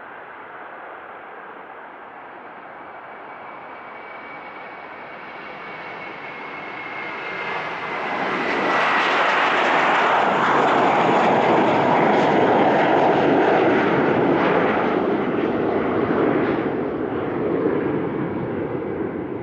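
Four turbofan engines of a Boeing C-17 Globemaster III (Pratt & Whitney F117) spooling up to high thrust for a power-back, reversing out of the parking stand on reverse thrust. A faint falling whistle comes first, then a deep rushing jet noise that swells about eight seconds in, holds strong, and eases off near the end.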